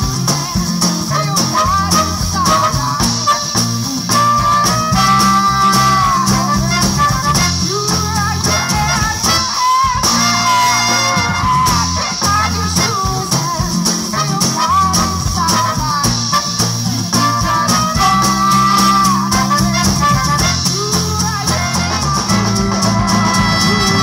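A live band playing: a woman singing over a horn section of saxophone, trumpet and trombone, with acoustic and electric guitars and drums keeping a steady beat.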